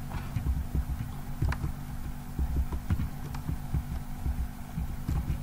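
Computer keyboard typing and mouse clicking heard through a desk microphone: irregular soft thumps with a few sharper clicks, over a steady low hum.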